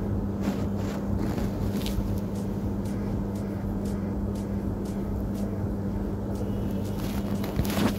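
A steady low electrical hum from a running household appliance, with a few faint clicks and a sharper knock just before the end.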